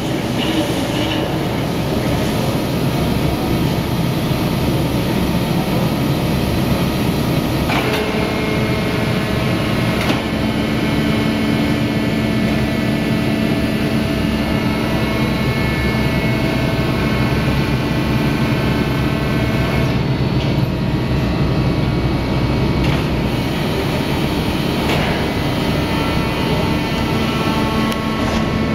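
Bale packaging line running: the roller conveyor and film-wrapping machinery make a steady machine noise. There are a few sharp knocks, about eight, ten and twenty-five seconds in, and a steady hum comes in about twelve seconds in.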